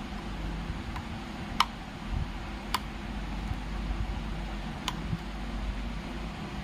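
Screwdriver clicking against the terminal screws of a moulded case circuit breaker as they are tightened: three sharp clicks a second or two apart, over a steady low background noise.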